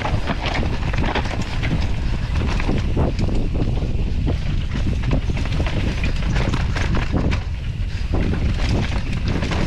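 Wind rushing over the microphone at riding speed, with mountain bike tyres crunching and rattling over a dry dirt trail in short irregular knocks.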